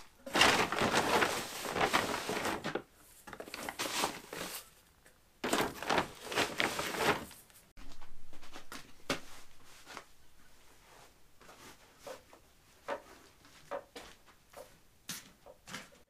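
Dry ground livestock feed poured from a metal can into a plastic bucket in several hissing pours, the longest about two and a half seconds. After that, quieter rustling and small clicks as the feed is scooped and mixed by hand.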